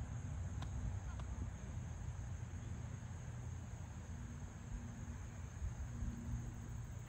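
Outdoor background: a steady low rumble with a faint, steady high-pitched hum over it, and two faint clicks about half a second apart near the start.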